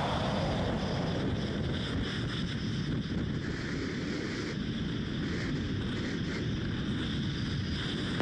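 Wind rushing over a camera microphone while skiing: a steady, noisy rumble with no distinct events.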